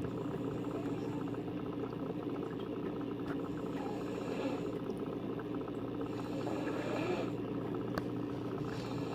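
A person snoring, with soft breathy swells about every three seconds, over a continuous low hum.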